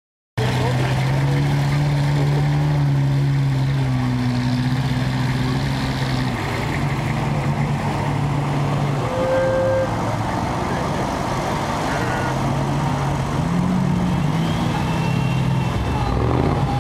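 Unimog 404's engine running at a steady low speed, its pitch stepping up and down a few times; it cuts in abruptly just after the start.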